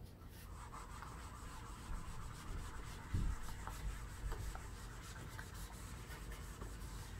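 Whiteboard eraser wiping across a whiteboard, a faint scratchy rubbing as the marker writing comes off, with a soft thud about three seconds in.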